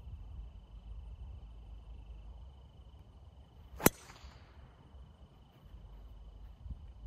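Driver striking a golf ball off the tee: one sharp crack about four seconds in, with a short ring after it, over a steady high-pitched tone.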